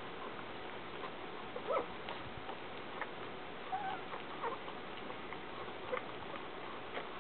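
Three-week-old Shih Tzu puppies giving a few brief faint squeaks amid small scuffling clicks, over a steady background hiss.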